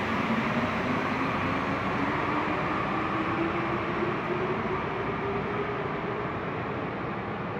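NS74 rubber-tyred metro train pulling out of the station and accelerating away: a steady running rumble with a whine that rises in pitch over the first few seconds, then slowly fades as the train recedes.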